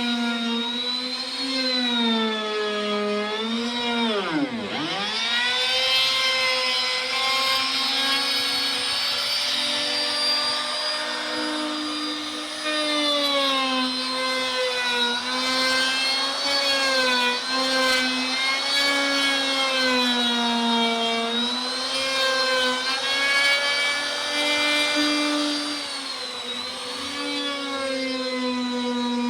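Electric power-tool motor whining while cutting plywood, its pitch sagging and recovering as the load changes, with one deep drop about four to five seconds in where the motor bogs down before spinning back up.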